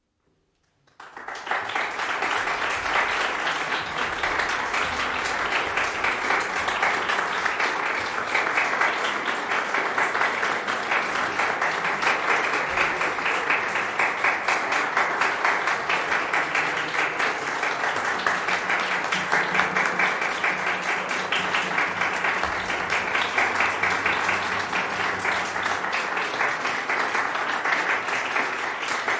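Audience applauding, a dense, steady clatter of many hands clapping that starts suddenly about a second in, out of near silence.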